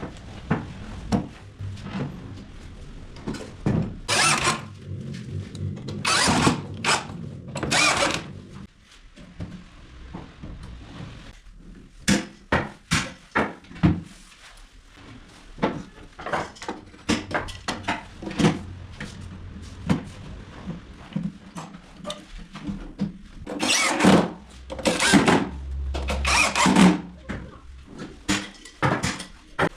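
Power drill driving screws in short bursts, three near the start and three more later on, between short knocks and clicks of the MDF drawer parts being handled and fitted.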